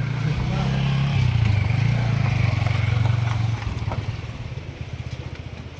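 A motor vehicle engine running with a fast, even pulse, growing louder about a second in and dropping back after about three and a half seconds.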